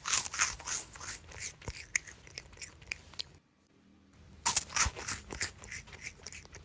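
A stiff yellow clay stick being snapped and crumbled between the fingers, with dense, crisp crunching crackles in two bouts and a short pause between them.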